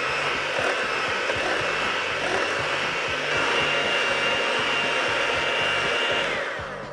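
Electric hand mixer running on high, its beaters whipping sugar and eggs in a glass bowl. The motor whine steps up a little about three seconds in, then winds down near the end as the mixer is switched off.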